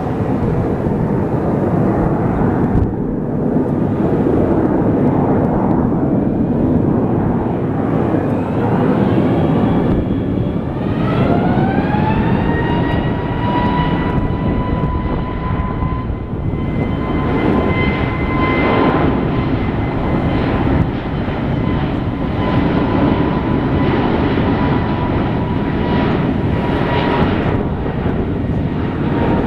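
Airbus A321neo's CFM LEAP-1A turbofan engines running over a steady rush of jet noise. About ten seconds in, a whine rises in pitch and then holds steady as the engines spool up.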